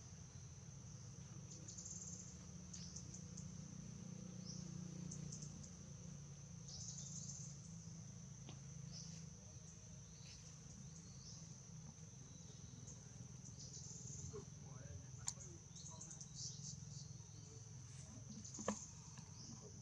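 Faint insect chorus: a steady high-pitched buzz that swells every few seconds, over a low rumble, with a few sharp clicks in the last few seconds.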